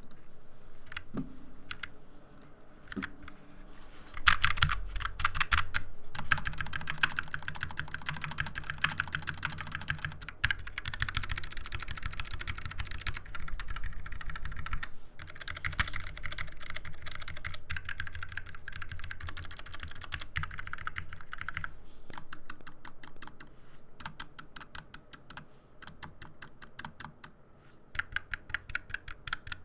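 Typing on a stock Fnatic Streak 65, a low-profile 65% mechanical keyboard. A few separate keystrokes come first, then fast continuous typing from about four seconds in, easing into quick runs of single key presses near the end.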